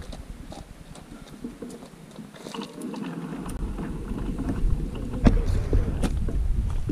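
Wind buffeting the camera microphone: a low rumble that starts about halfway through and grows louder, with a couple of sharp knocks.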